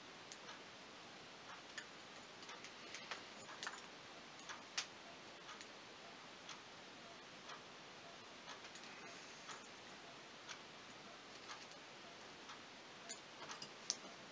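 Faint, irregular light clicks of a small screwdriver tip against a brake master cylinder as the lips of a rubber seal are pushed into the bore, a couple of them louder about four and five seconds in. Under them runs a faint steady tick about once a second.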